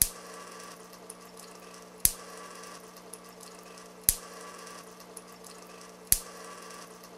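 Electric sparks snapping across the gap between the two brass spheres of a Lord Kelvin's Thunderstorm (Kelvin water-drop generator). There are four sharp cracks about two seconds apart, each a discharge once the falling water drops have built the voltage back up. A steady faint hiss of trickling water runs underneath.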